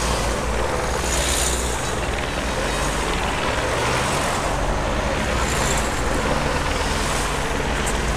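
A convoy of cars passing close by one after another, a continuous rush of engine and tyre noise that swells several times as individual cars go past.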